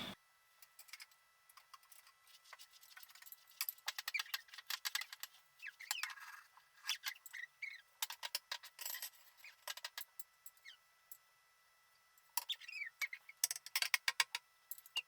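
Faint chirping and twittering of small birds: short, quick, high chirps mixed with sharp clicks, coming in irregular clusters.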